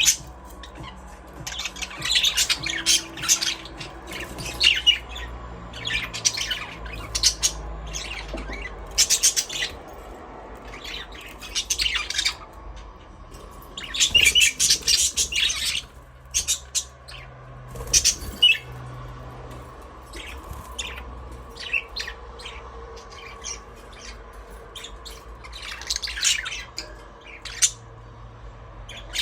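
A flock of budgerigars chirping and squawking in irregular clusters of short, high calls.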